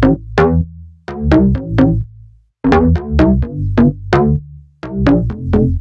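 Electronic music: a synthesizer intro of quick plucked notes over a bass line, played in short phrases with brief breaks between them.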